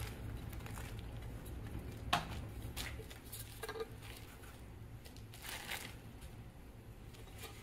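Faint scraping and rustling as diced onion is scraped off a metal blade into a plastic-lined slow cooker, with a few soft taps and crinkles about two, four and five and a half seconds in.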